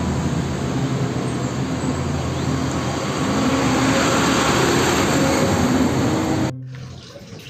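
Diesel engine of a Mercedes-Benz Axor tanker truck running close by, mixed with road noise. It cuts off suddenly about six and a half seconds in.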